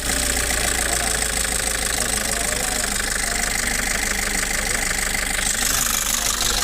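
Nissan Urvan E25 diesel engine idling steadily just after starting, with a knock in its running. The owner puts the knock down to a defective injection pump and its injection timing.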